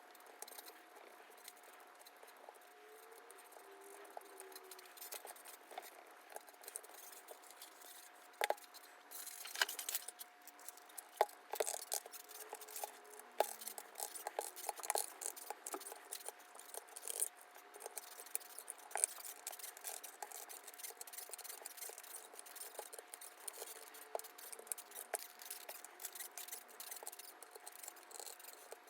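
PBT plastic keycaps clicking and clinking as they are handled, in irregular sharp clicks that come sparsely at first and thicken from about eight seconds in. A faint steady hum sits underneath.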